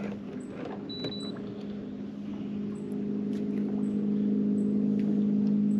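Electric trolling motor on a fishing boat humming steadily, growing louder about three seconds in. Light clicks of handling, and a brief high beep about a second in.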